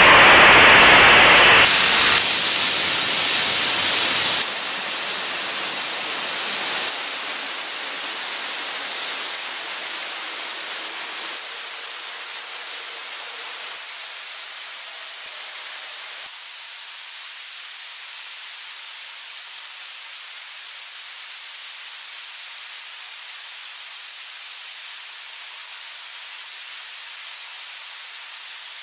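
Jet Edge waterjet cutter's high-pressure water jet cutting through a stone slab: a steady hiss. It drops in level in several steps over the first fifteen seconds or so and grows thinner as its low end falls away, then holds steady.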